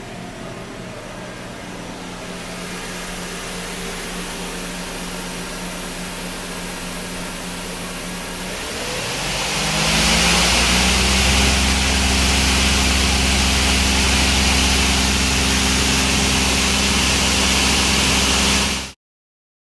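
1996 Leadwell LTC20AP CNC lathe running with a steady hum. About nine seconds in the spindle spins up with a rising whine, then runs steadily and much louder, before the sound cuts off suddenly near the end.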